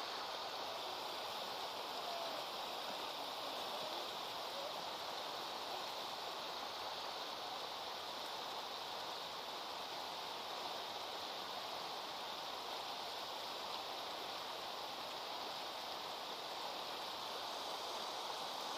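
A fast river rushing over rapids: a steady rush of water.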